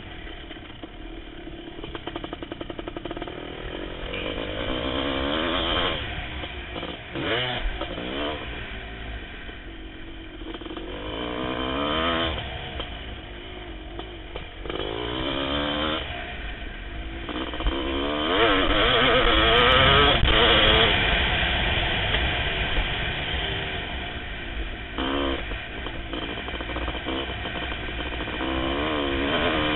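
1988 Kawasaki KX500's two-stroke single-cylinder engine being ridden hard, revving up and falling back again and again between throttle openings and shifts. It is loudest in a long pull about two-thirds of the way through.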